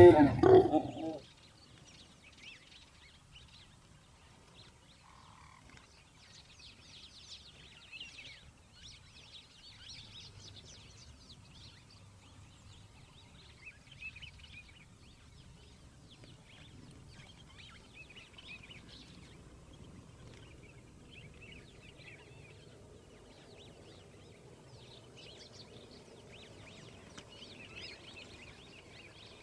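Male African lion roaring loudly while mating, cutting off about a second in. Faint high chirping follows.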